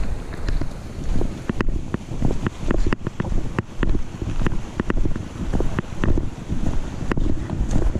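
Wind rushing over the microphone of a GoPro clipped to a backpack chest strap, with a thump about twice a second as each footfall jolts the camera, and scattered sharp clicks.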